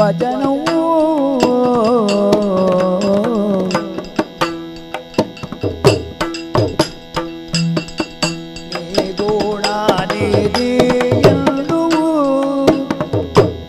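Yakshagana music: a male bhagavata singer holds a bending sung phrase over a steady drone, accompanied by the maddale barrel drum. From about four seconds in the singing drops away and the maddale plays on its own in quick strokes, and the voice comes back briefly near the end.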